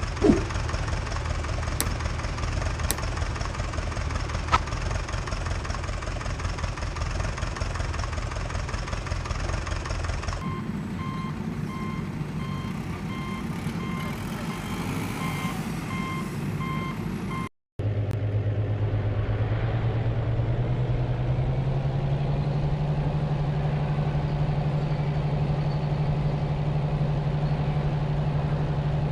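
Heavy diesel machinery running steadily. From about ten seconds in, a reversing alarm beeps at an even pace for several seconds. After a brief cut, an engine's pitch rises and then holds steady under load.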